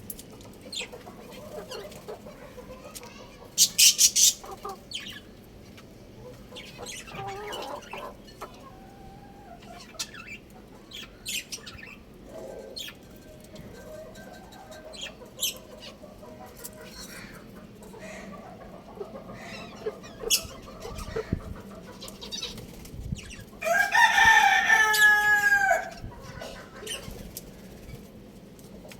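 Young rooster calling with short chirps and clucks, and a loud rapid flurry about four seconds in. Near the end it gives a loud crow lasting about two seconds, its pitch wavering and falling.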